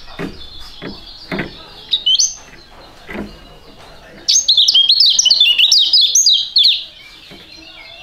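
White-eye (kecial) singing: a short high chirp about two seconds in, then a loud, rapid twittering run of quick high notes lasting about two and a half seconds. A few soft knocks come before the song.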